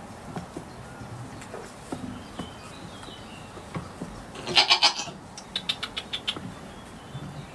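A goat bleating: one loud, quickly wavering bleat a little past halfway, followed by a thinner run of quick pulsing notes.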